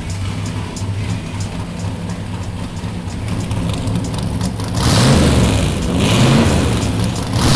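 Fuel-injected Chevrolet V8 of a 1956 Corvette SR-2 race car idling with a steady beat, then revved in two swells, about five seconds in and again near the end.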